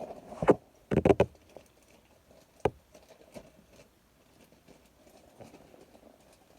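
Handling noise: a few sharp knocks and clatter in the first second and a single knock near three seconds, then faint rustling.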